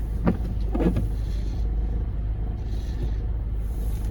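Car engine running with a steady low rumble heard from inside the cabin, with two brief faint sounds in the first second.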